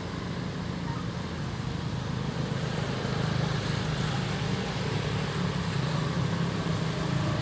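Steady low engine hum of nearby motor traffic, growing a little louder about three seconds in.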